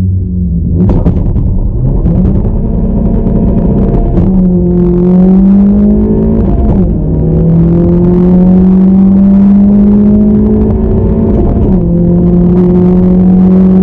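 Tuned 11th-gen Honda Civic Si's 1.5-litre turbocharged four-cylinder, with an aftermarket intake, downpipe and Remark exhaust, pulling at full throttle on a quarter-mile run. The engine note climbs through each gear, with a quick drop in pitch at three upshifts.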